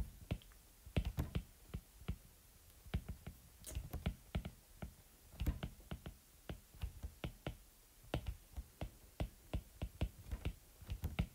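Stylus tip tapping on a tablet's glass screen during handwriting: a run of light, irregular clicks, several a second, with short pauses between words.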